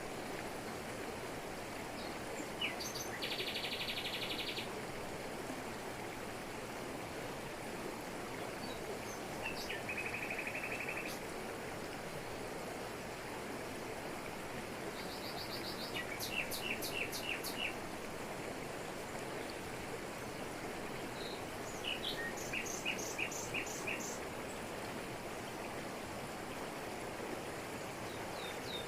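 Steady rush of a waterfall falling over rocks, with birds calling over it: two short, rapid trills, then two quick runs of repeated sharp notes later on.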